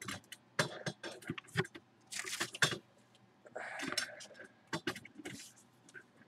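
Handling noise: scattered clicks and knocks of objects being moved about, with two short bursts of rustling about two and four seconds in.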